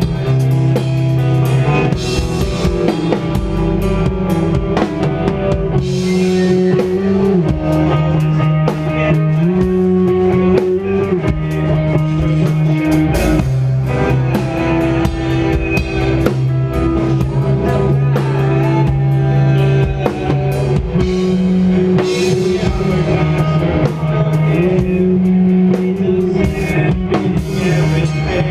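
Live post-hardcore band playing loudly: drum kit, guitar and bass, with long held notes that change pitch every couple of seconds over a steady drum beat.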